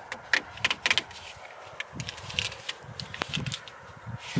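Irregular sharp clicks and light knocks of small parts and tools being handled while working on the oil-line fittings.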